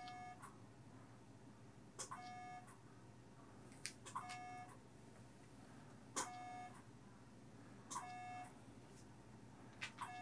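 AGNES radio-frequency micro-needling device signalling each energy pulse: a sharp click and then a steady half-second beep, repeating about every two seconds, six times, as the needle tip is applied point by point along the lower-eyelid fat pad.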